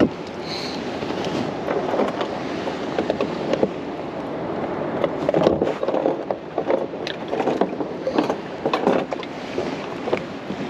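Lake water splashing and sloshing beside a plastic kayak, with irregular knocks and rattles on the hull, as water is scooped into the live well.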